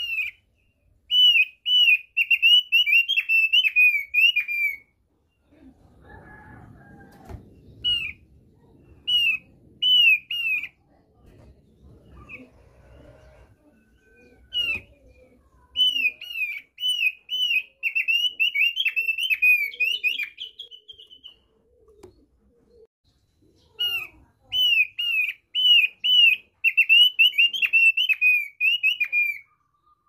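Thick-billed white-eye (opior paruh tebal) singing its basic song: fast runs of high, down-slurred chirps, in four bursts of a few seconds each with short pauses between.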